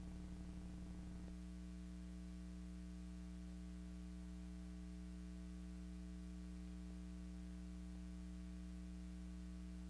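Steady electrical hum with faint hiss; a rougher low buzz in the hum drops out a little over a second in.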